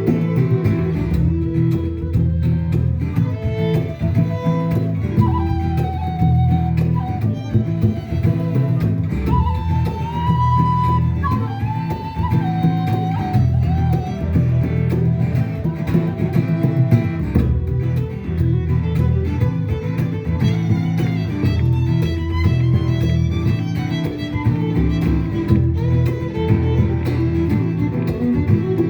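Acoustic folk music: a melody line that slides between notes, over guitar and a steady low accompaniment.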